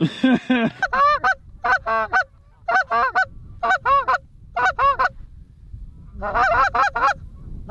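Geese honking: quick arched calls in clusters of two to four, roughly a second apart, running into a faster, unbroken string of honks near the end.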